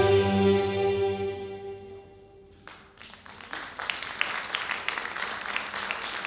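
Arabic belly dance music ends on a held chord that fades away. About two and a half seconds in, the audience starts to applaud, with scattered sharp claps.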